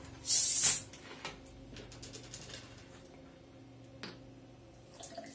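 Screw cap twisted off a plastic bottle of sparkling mineral water: a loud hiss of escaping carbonation lasting about half a second. Faint fizzing ticks follow, and the water is poured into a glass near the end.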